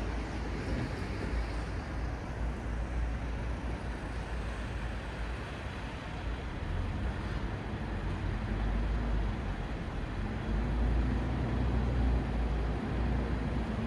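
Road traffic at a city intersection: a steady wash of tyre and engine noise from passing vehicles. A heavier low engine hum builds and grows louder in the last few seconds.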